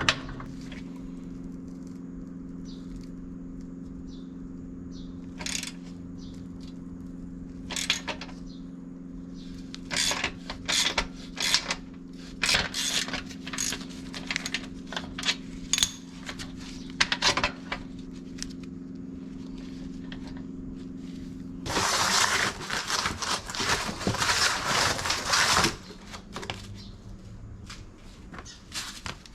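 Metal tools and parts clicking and clinking in irregular knocks over a steady low hum, followed by about four seconds of a loud hissing rush that cuts off.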